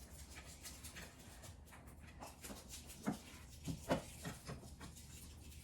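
Faint handling of small hardware as a fridge wheel and its washers are fitted by hand: a few soft knocks and clicks, most of them about three to four seconds in.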